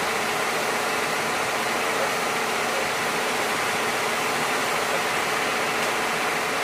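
Steady, unchanging mechanical hum and hiss of a parked police command truck's machinery running, like an idling engine.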